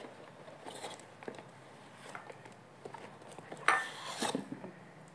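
Glass dinnerware being unpacked: packaging rustling and small handling clicks, with a louder clatter and a brief clink about three and a half seconds in.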